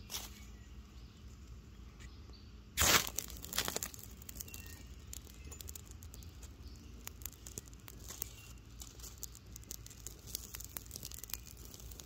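A fluffy plant-fibre tinder bundle being lit: a sudden loud rush of noise a little under three seconds in, then fine, irregular crackling as the tinder and dry leaves catch and burn.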